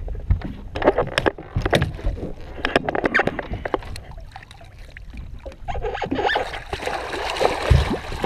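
Water splashing and sloshing against a boat hull as a hooked redfish thrashes at the surface, with sharp knocks and clatter in the first half. The splashing builds to a dense, hissing spray near the end.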